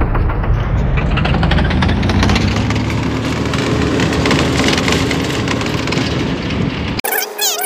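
Vehicle engine and road noise heard from inside a moving vehicle with the window open: a steady low rumble with a faint engine tone that rises a little and then holds, plus light rattling. Cuts off suddenly near the end.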